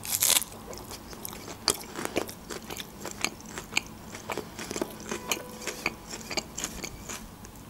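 A crisp bite into a lettuce leaf wrapped around çiğ köfte at the very start, then chewing with many small wet clicks and smacks.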